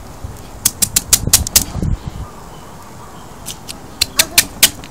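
A long knife cutting along a fish's rib cage, its blade ticking over the bones in two quick runs of sharp clicks, each lasting about a second and a half.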